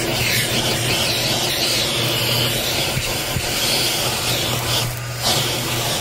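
Bissell Helix vacuum running with its crevice tool drawn over car floor carpet, a steady motor hum and rushing suction, picking up dirt and small wood pieces. The suction sound briefly drops about five seconds in.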